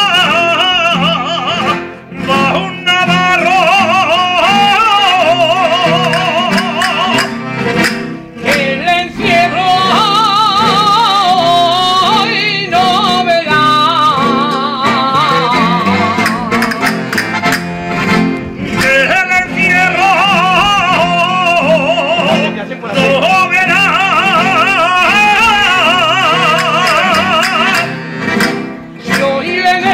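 Jota sung by a man in a high, strongly wavering voice, in long phrases with short breaks between them, over strummed guitar accompaniment.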